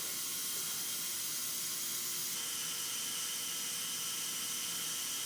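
Steady, even hiss with a few faint steady tones in it, from the cleaning of a watch case.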